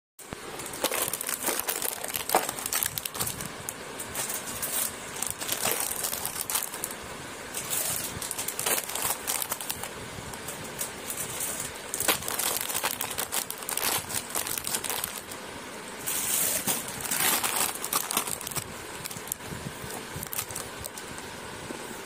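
Plastic food packets crinkling and rustling as they are handled, on and off throughout.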